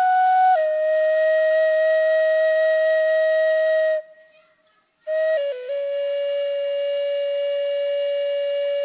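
Solo flute playing long held notes: a note that steps down about half a second in and is held until about four seconds in, a short pause, then a few quick notes settling into another long held note.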